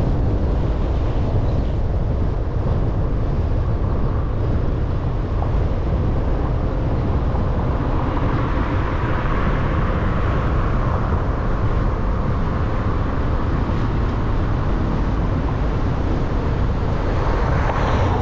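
Steady low rumble of a car driving: road, engine and wind noise, swelling a little about halfway through and again near the end.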